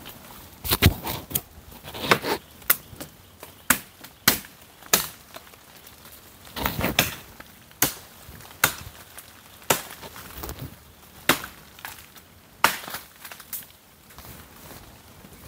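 Dry wood being chopped and broken: sharp, irregular cracks and chops about once a second, some with a longer splintering crunch.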